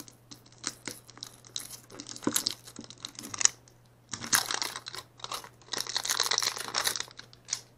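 Thin clear plastic wrap being picked at and peeled off a plastic capsule ball: scattered clicks and crinkling, with two denser stretches of crinkling and tearing past the middle.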